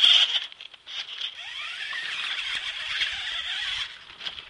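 High-pitched whine of a radio-controlled scale truck's electric motor and gears as it crawls over concrete blocks. The whine cuts out briefly about half a second in, rises in pitch about a second and a half in, and fades near the end.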